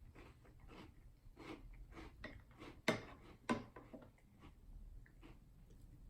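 Chewing a mouthful of cereal in milk, partly soggy and partly crunchy: irregular small crunches and clicks, with two louder ones about three seconds in.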